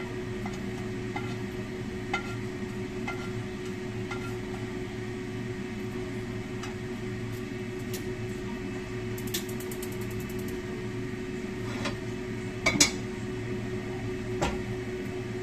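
A metal spatula clinks and scrapes against a small wok and a metal plate as food is turned out, over a steady hum. About two-thirds of the way in comes a quick run of ticking from a gas stove's igniter, then a louder clatter as the wok meets the burner.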